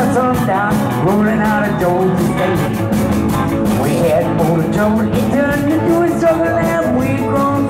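Live band music: several voices singing at microphones over drums with a steady beat and acoustic guitar.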